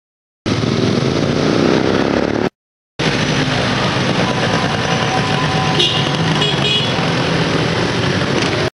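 Busy street traffic, with motorbike and car engines running and a horn tooting. The sound drops out twice briefly near the start, where the recording is cut.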